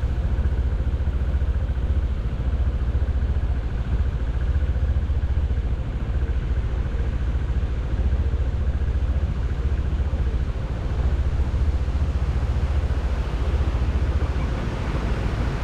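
Steady low rumble of road-vehicle noise, with wind on the microphone.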